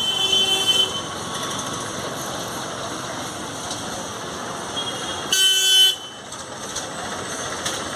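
Vehicle horns honking over steady street traffic: one honk right at the start and a louder, half-second honk about five and a half seconds in.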